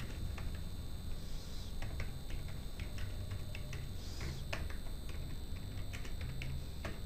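Computer keyboard keys clicking in irregular runs as commands are typed, over a steady low background hum.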